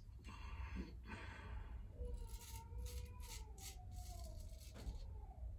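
Freshly honed Heinrich Schoenbrunn straight razor scraping through lathered stubble on the cheek, in several short, faint rasping strokes.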